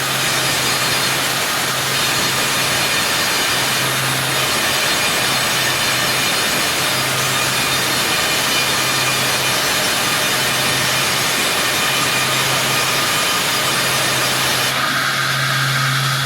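Sawmill saw cutting through wood: a loud, steady, dense rasping over a low motor hum that swells and fades every second or two. Near the end the hiss thins out and a steady whine comes in.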